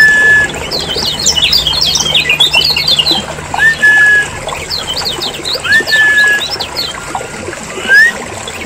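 Kecial kuning (yellow white-eye) calling in a noisy, agitated chatter: fast runs of short high chirps in two bursts, with a short rising whistle repeated about every two seconds. This is a lure (pikat) recording used to draw in and set off other white-eyes.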